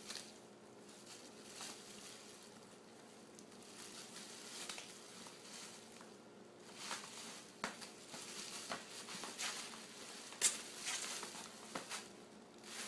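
Plastic bubble wrap and sheeting rustling and crinkling as a ferret pushes and burrows into a box packed with it, with scattered sharp crackles, the loudest about ten seconds in.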